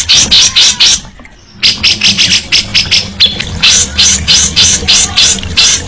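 Cucak jenggot (grey-cheeked bulbul) singing a rapid series of harsh, rasping notes, about five a second, with a brief break about a second in.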